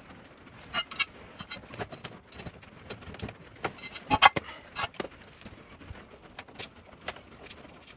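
Irregular metal clinks and knocks of bolts, washers and a steel plow-mount bracket being handled and fitted by hand, with the loudest clank about four seconds in.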